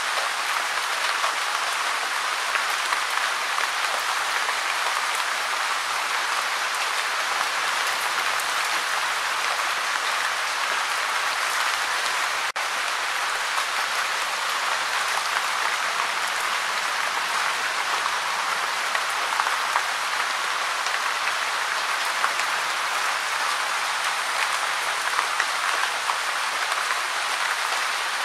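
Steady gentle rain: a dense, even hiss of falling drops with small louder drips scattered through it, broken by a split-second gap about halfway through.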